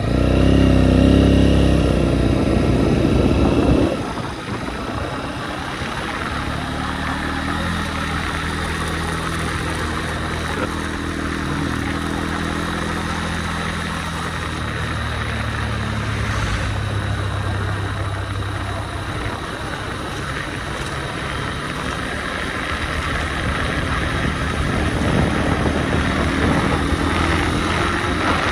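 Motorcycle engine running while riding, heard through a phone mounted on the rider's helmet, with wind noise. It is loudest for the first four seconds, then settles into a steady drone.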